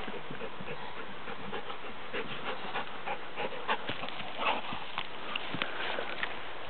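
A dog panting close by, with irregular short scuffs and clicks from about two seconds in as it moves about on the loose dug soil at its burrow.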